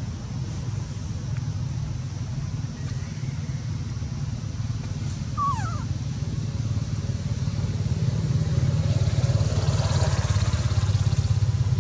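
A baby macaque gives one short squeak that falls in pitch, about five and a half seconds in, over a steady low engine rumble that grows louder in the second half.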